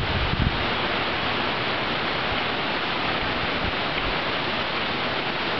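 Wind blowing steadily as a rushing hiss, with a few low buffets on the microphone about half a second in.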